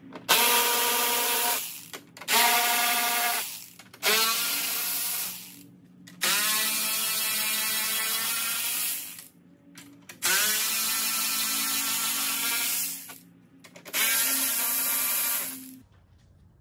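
Cordless power tool running bolts out, six runs of one to three seconds each with short pauses between, the motor's pitch climbing as each run starts. These are the 10 mm bolts holding the top trim piece over the grille.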